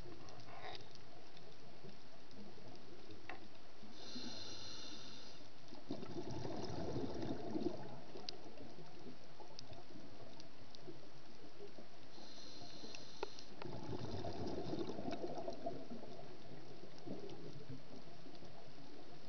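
A scuba diver breathing through a regulator underwater, twice: a hissing inhale, then a rough bubbling burst of exhaled bubbles about two seconds later. Faint scattered clicks throughout.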